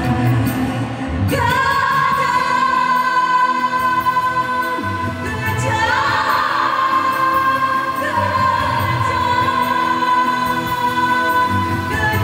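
A woman singing a dangdut song into a microphone over a karaoke backing track, holding long notes that start with a sliding ornament about a second in, at about six and eight seconds, and again near the end.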